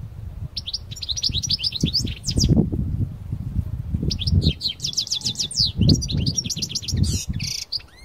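Caged male European goldfinch (parva race) singing two long phrases of rapid, high notes, with a short pause between them about halfway. An irregular low rumble runs underneath.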